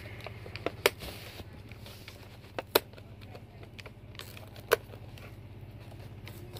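Scattered sharp clicks and light crinkles of a clear plastic toy packaging tray being handled and pulled at by hand, four of them louder, including two in quick succession about midway. A steady low hum runs underneath.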